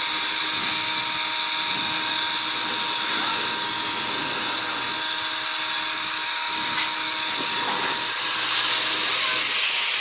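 Handheld leaf blower running, a steady rush of air with a thin whine on top; it gets louder near the end.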